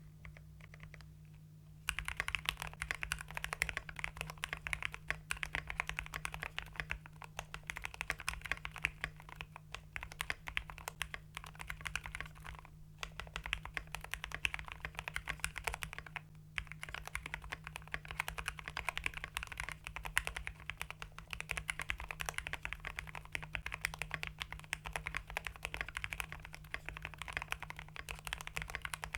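Typing on a mechanical keyboard with factory-lubed Gateron Pro Red linear switches in an Ajazz AC064 case with an FR4 plate and PBT XDA keycaps. Dense keystrokes start about two seconds in, with two short breaks midway.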